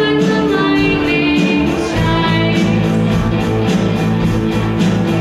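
Live rock band playing: girls singing over electric guitars, bass and drums. About two seconds in, the band comes in heavier with strong low bass notes.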